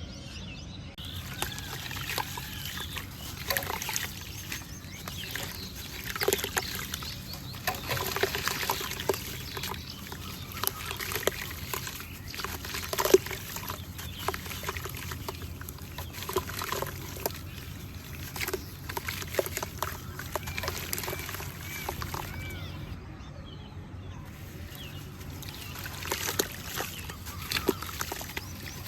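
Water trickling over small pebbles, a continuous patter of many small irregular drips and splashes.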